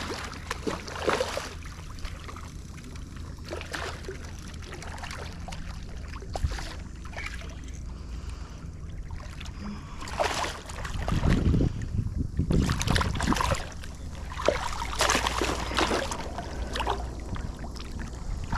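Hooked redfish thrashing and splashing at the surface of shallow water as it is fought and grabbed by hand, with wind rumbling on the microphone. The heaviest splashing comes in two spells in the second half.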